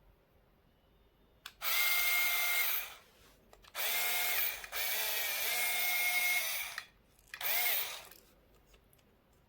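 Crown cordless drill motor running on its repaired, freshly soldered battery pack: three trigger pulls, a short run, a longer one of about three seconds, and a brief one near the end. Each whines up to speed and winds down.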